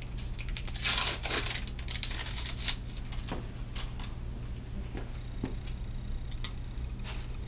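Paper wrapper being torn open and pulled off a wooden tongue depressor: a burst of tearing and crinkling paper in the first two or three seconds, loudest about a second in, then a few faint scattered clicks and rustles.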